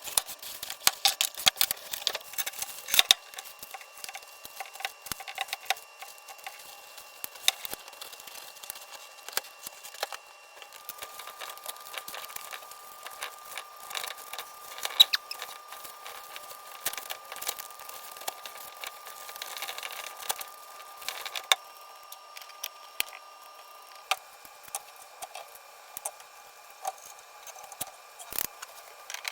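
Irregular clicks, taps and light rattles of a softbox light and its stand being handled and set up, with a faint steady high whine through the second half.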